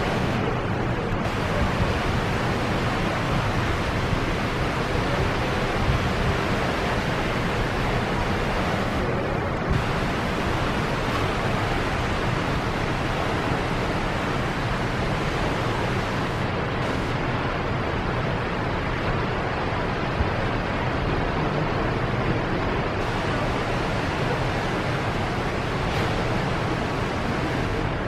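Stirling Falls, a tall waterfall, crashing into the fjord: a steady rushing noise of falling water and spray.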